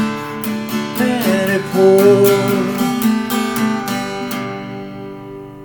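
Acoustic guitar strummed in a steady rhythm, ending on a final chord left ringing and fading out.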